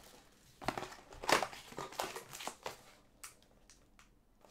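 A sealed Panini Prizm Choice trading-card box being torn open: its wrapper and cardboard crinkle and rip in several short goes over the first three seconds, then it goes quiet.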